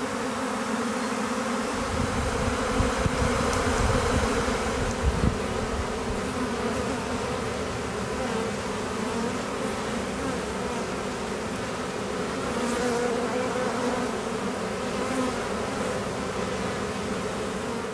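Honeybees buzzing in a steady hum around a wooden hive box, a newly housed swarm settling in.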